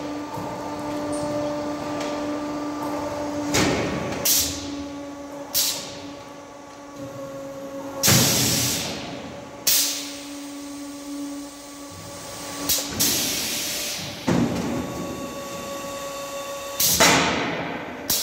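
Automatic silage bagging machine working through a packing cycle: a steady motor hum under about ten sudden air hisses and knocks from its pneumatic actuators, some short and some lasting most of a second.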